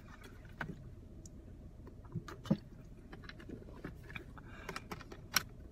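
Faint scattered clicks and small taps, about half a dozen over several seconds, over a low steady hum.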